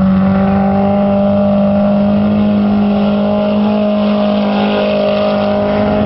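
Race car engine running hard at a high, steady pitch that creeps slightly upward as the car holds speed on the track.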